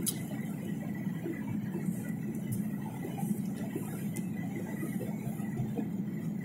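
Steady cabin noise of a Boeing 737 airliner on approach with flaps extended: the jet engines and rushing air, with a faint steady high whine.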